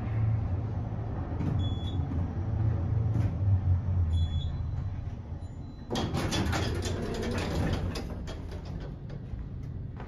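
Otis DC gearless traction elevator car riding up with a low steady hum that fades as it slows to a stop. About six seconds in, the center-opening doors slide open with a sudden rush of rattling clicks.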